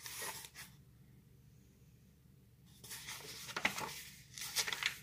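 Paperback book being handled and its pages turned: soft papery rustles and brushes, with a quiet gap of about two seconds in the middle.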